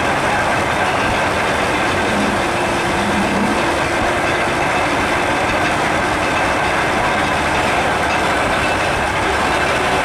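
Antique steam-driven veneer mill running, a loud, steady mechanical clatter and rumble of the mill working without a break.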